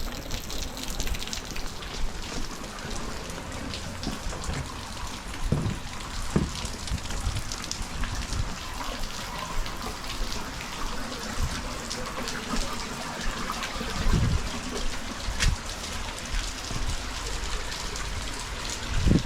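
Water gushing steadily from a pool's evacuation line as the pump drains the overfull pool, mixed with heavy rain, and a few dull thumps scattered through it.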